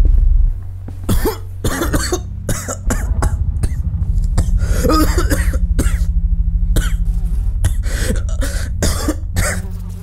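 Someone coughing and clearing their throat again and again, choking on a foul smell, over a steady low drone.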